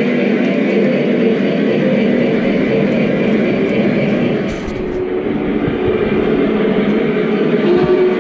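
O gauge model trains running on three-rail track: a steady rumble of metal wheels rolling over the rails, with a steady hum.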